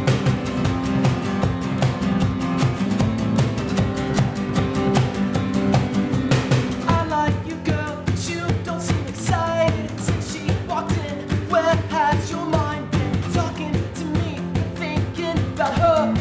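Acoustic pop-rock song played live: strummed acoustic guitars over a steady cajon beat, with a male lead vocal coming in about seven seconds in.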